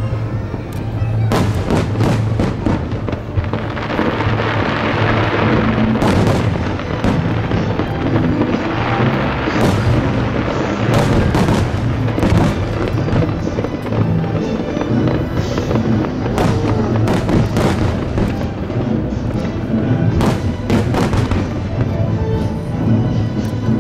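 Fireworks display: aerial shells bursting in quick succession with dense crackling, over steady background music.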